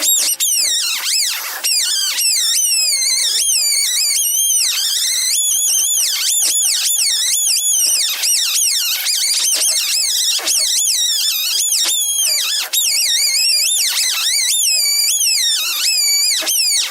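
Electric sanding machine whining steadily, its pitch repeatedly dipping and recovering as a piece of horn is pressed against it and eased off during shaping.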